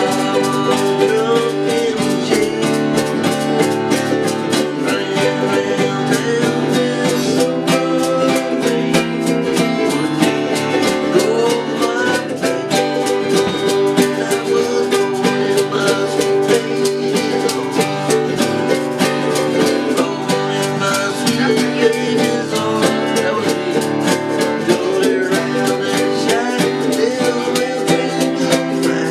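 Acoustic plucked-string instruments playing a country-style tune together, with quick picked notes over held chords.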